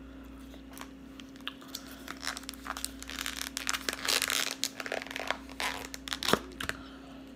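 Plastic crinkling and tearing with small clicks and crackles as a plastic utensil is unwrapped and a clear plastic takeout container is opened, starting about two seconds in and busiest around the middle.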